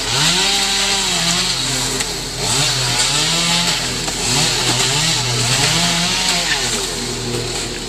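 A chainsaw running and revving up and down about once a second while it cuts palm fronds, over a steady engine drone.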